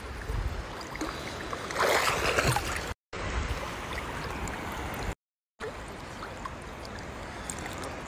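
Sea water lapping and sloshing around swimmers, with a louder splash about two seconds in; the sound cuts out briefly twice.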